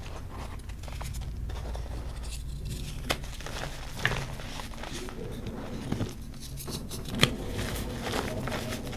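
Reformed gym chalk being crushed and crumbled by hand: a few sharp crunches, the loudest about seven seconds in, with softer crumbling and crackling between them.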